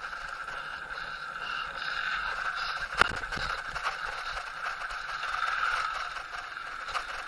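Bicycle rolling over a concrete-slab bridge, with steady tyre and rattle noise. There is a sharp knock about three seconds in and a smaller one near the end.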